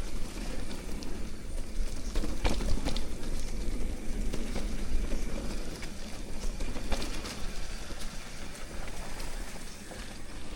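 Mountain bike rolling down a dirt trail: a steady low rumble of tyres over the ground, with frequent sharp rattles and clicks of the bike over bumps.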